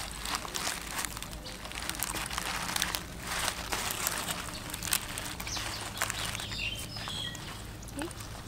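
A round wooden stick pressed and pushed along a featherback fish on a bamboo board, squeezing the flesh out: irregular soft scraping and crackling strokes.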